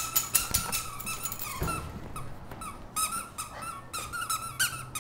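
Dog chewing a squeaky toy, setting off a rapid, irregular run of short high squeaks.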